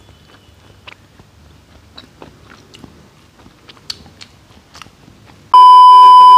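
Close-miked eating of spaghetti with a fork: soft chewing and slurping with small clicks of the fork on the plate. About five and a half seconds in, a loud steady test-pattern beep cuts in suddenly, the tone that goes with TV colour bars.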